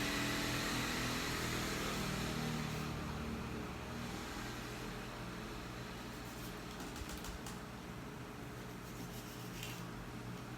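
Steady mechanical motor hum with a hiss, louder for the first couple of seconds and then settling a little quieter.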